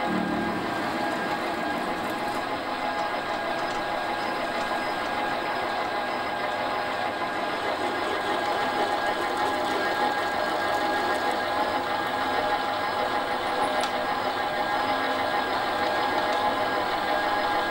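Small metal lathe running at a steady speed, its motor giving a steady whine of several tones.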